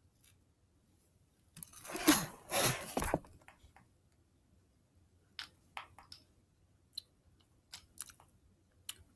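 Handling noise of the recording camera as it is moved and turned: a loud rustling, scraping stretch of about a second and a half, followed by a scatter of light clicks and taps.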